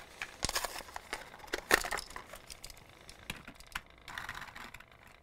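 Faint handling noise of small die-cast toy cars being moved by hand: scattered light clicks and taps with a few short rustles, the loudest about half a second in and near the two-second mark.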